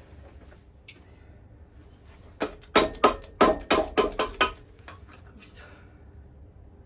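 A rapid run of about nine hard knocks with a short metallic ring, about four a second, from a plastic-faced mallet tapping the housings of a Mazda 13B rotary engine apart. A single knock comes about a second before it, and a few fainter ones follow.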